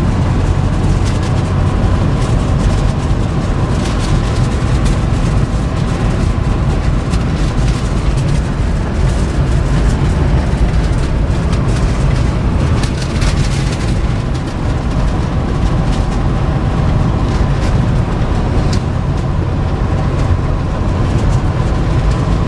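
Ram pickup with a Cummins turbo diesel driving at speed: a steady, loud low rumble of engine and road, with wind gusting and crackling on the microphone.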